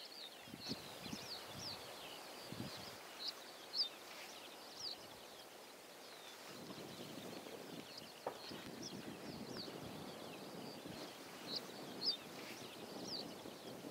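Small birds chirping: many short, high calls, some sliding up or down in pitch, repeating throughout. A low rushing background grows louder about halfway through.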